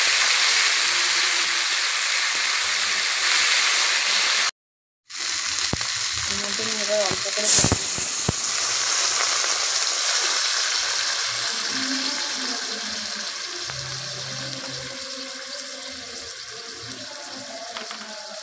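Potato pieces with tomato and green chilli sizzling in hot oil in a kadai, stirred with a metal spatula. The sizzle cuts out briefly about five seconds in, a spatula knocks against the pan about halfway through, and the sizzle then slowly dies down.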